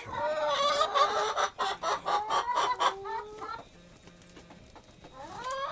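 Chickens clucking and calling, with short clucks and a long drawn-out call that falls in pitch. The calls go quiet about two-thirds of the way through, and a new rising call starts near the end.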